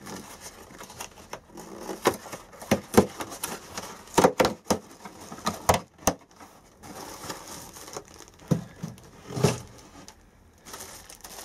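Cardboard postal pack being opened and rummaged through, then a plastic bag of plants crinkling as it is pulled out: irregular rustling with scattered sharp crackles and snaps.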